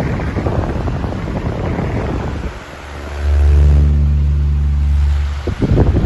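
Venti Delta Ventura pedestal fan running, its airflow buffeting the microphone with a rushing wind noise; about three seconds in a loud, steady low hum takes over, broken by a brief flutter near the end.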